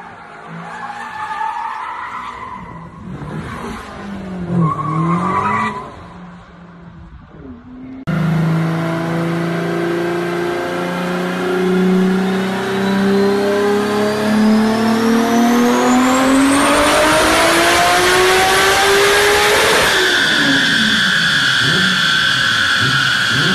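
BMW car engines revving and accelerating with tyres skidding. Near the middle a louder engine note starts and climbs steadily in pitch for about twelve seconds, then gives way suddenly to a high steady whine.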